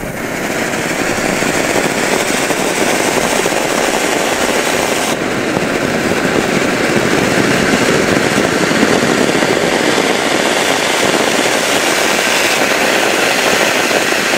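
Small ground firework fountain (a 'Vulkan') spraying sparks: a loud, steady rushing hiss that builds over the first second or two as the fountain gets going, then holds evenly.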